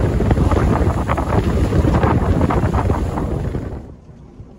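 Strong wind buffeting the microphone over the rush of waves aboard a sailing catamaran under way in rough water. It cuts off abruptly near the end, leaving a much quieter low rumble.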